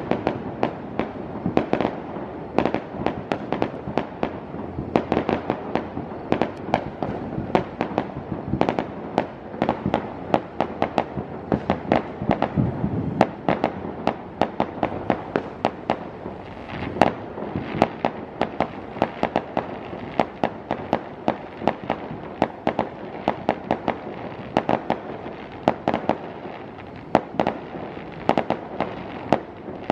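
Many New Year fireworks going off at once: a constant stream of cracks and bangs, several a second, over a steady rumble.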